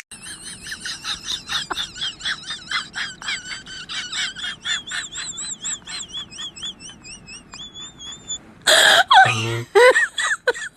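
Comedy sound effects: a rapid string of high, squeaky chirps that wobble in pitch, about three or four a second, spacing out toward the end. Near the last two seconds comes a loud noisy burst with a short low sound, then quick laugh-like cries.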